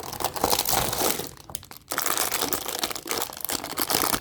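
Crinkling and rustling of packaging being opened and handled by hand. It comes in two stretches with a short pause between them.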